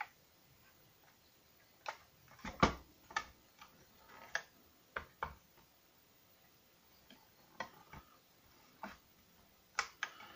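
Scattered clicks and knocks of 3D-printed prop pistol parts being handled and fitted together, with a dozen or so irregular taps. The loudest knock comes about two and a half seconds in.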